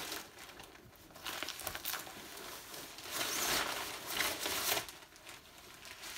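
A nylon stuff sack being handled and packed, rustling and crinkling in irregular bursts, loudest a little past the middle.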